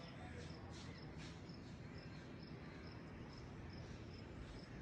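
Faint insect chirping: short, regular chirps about three a second over a low, steady background noise.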